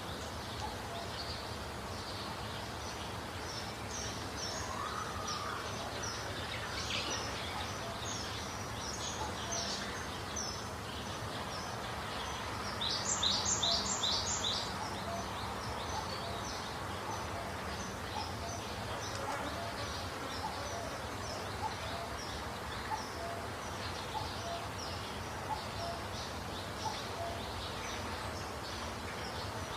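Small birds chirping and twittering over steady outdoor background noise, with a louder run of four quick notes about halfway through.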